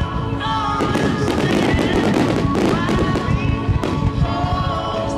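Fireworks shells bursting and crackling in quick succession, over music.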